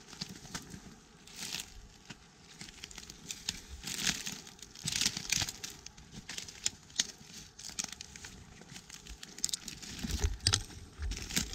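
Dry woodland debris (leaf litter, twigs and brush) being disturbed: irregular rustling and crackling with small snaps, in denser spells about four seconds in and near the end, where a few dull thumps also sound.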